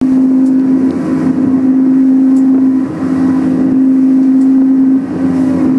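Boston Whaler Outrage 240's outboard engine running at a steady drone under way in rough seas, over a haze of wind and water noise. The drone dips briefly twice.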